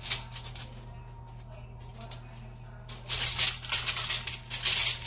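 Aluminium foil crinkling and rustling under hands pressing and rolling biscuit dough on it, in a quick run of crackles over the last two seconds, over a steady low hum.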